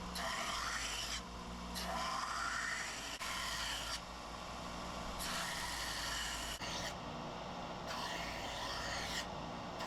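Belt grinder running, with a Damascus steel knife blade pressed against the abrasive belt to grind its bevel: a rasping grind that comes in repeated passes of about a second each, with short breaks between, over the motor's steady hum.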